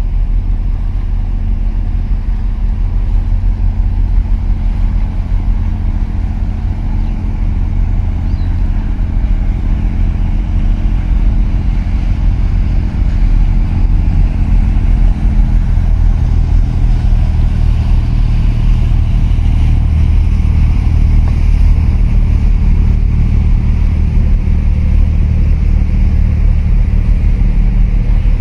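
Low, steady engine drone of the container ship OOCL Kaohsiung and its pilot boat passing close. About halfway through, the pitch of the drone shifts and it grows slightly louder.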